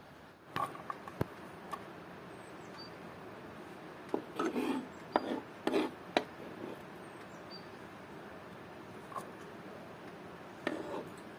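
Scattered light knocks and clicks of cooking utensils and ingredients being handled. A quick cluster of knocks comes around the middle and a short one near the end.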